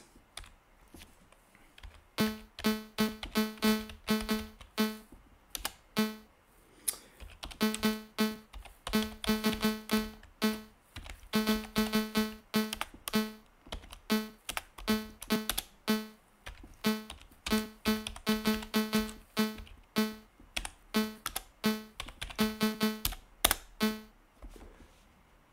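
Commodore 64 SID sound chip giving a short tone of the same low pitch at every key press, fired by a tiny interrupt-driven routine that a two-line BASIC program writes into memory, over the clicks of fast, irregular typing. The beeps come about two to four a second, pause briefly around six seconds in, and stop shortly before the end.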